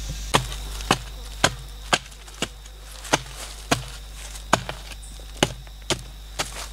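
A hand digging tool chopping repeatedly into the ground, loosening earth, with sharp strikes about two a second at a slightly uneven pace.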